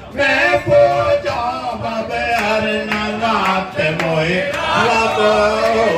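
Devotional hymn singing with musical accompaniment, a Jain aarti-style chant in praise of Mahavira. The voices hold long, gliding notes.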